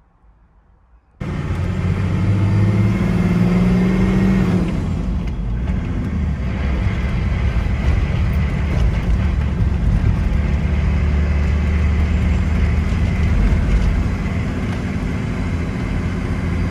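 Toyota HZJ75 Land Cruiser's 4.2-litre six-cylinder diesel and road noise heard from inside the cab while driving, cutting in suddenly about a second in. The engine note rises as the truck accelerates, drops back at about four and a half seconds, then holds steady.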